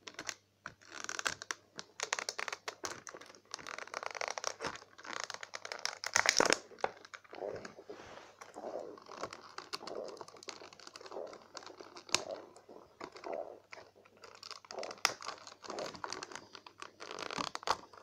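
Clear plastic blister packaging crinkling, crackling and clicking as it is bent and pulled away from its cardboard backing to free a toy, with many short sharp clicks; loudest about six seconds in.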